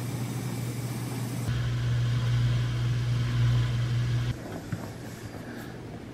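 A steady low hum that gets louder about a second and a half in and drops back sharply a little after four seconds, followed by a few light taps.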